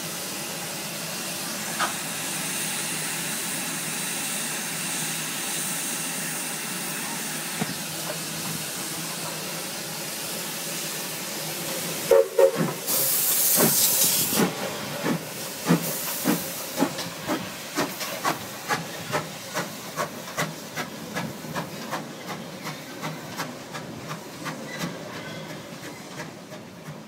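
Steam locomotive M4, a 1951 Robert Stephenson & Hawthorn 4-6-2, hissing steadily as it stands. About halfway through it gives a loud burst of steam and starts off, settling into evenly spaced exhaust chuffs that fade as it draws away.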